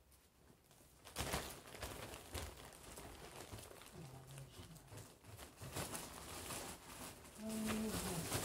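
Plastic bags and clothes rustling and crinkling as they are handled and sorted, with a short faint voice-like hum near the end.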